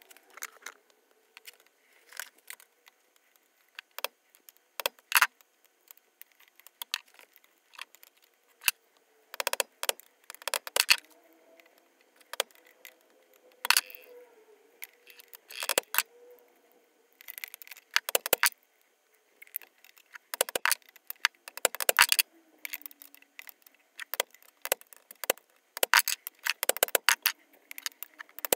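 Irregular sharp clicks and light metal knocks, some in quick runs, from the old car horn and a small steel block being handled against a steel bench vice.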